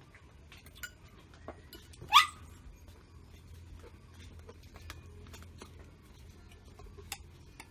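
A dog gives one short, sharp yelp about two seconds in, with faint clinks of a spoon against a plate around it.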